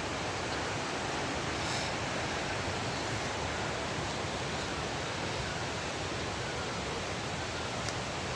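Steady rush of flowing water, an even hiss that holds constant throughout.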